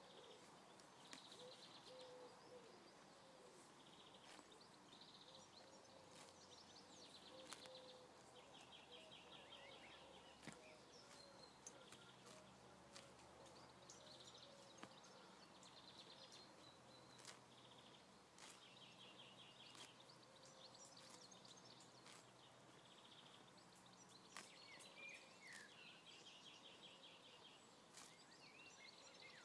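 Faint sound of a yearling gypsy cob colt grazing: short sharp tearing clicks as it crops grass, every second or so. High chirping trills repeat in the background.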